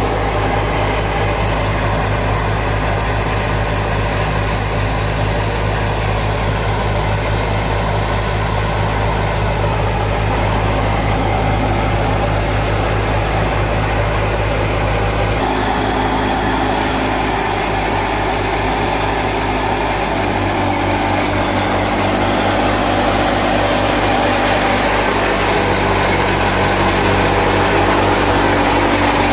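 Fiat 480 tractor's diesel engine running steadily while driving a wheat thresher. The engine note and the machinery noise shift about halfway through.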